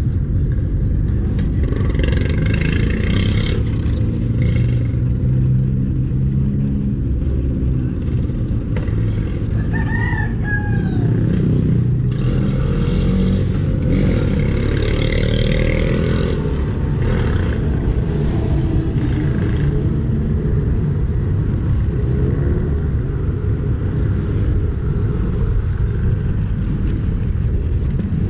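Wind rushing over the handlebar camera's microphone and tyre and traffic noise as a bicycle rolls along a street. About ten seconds in, a rooster crows once.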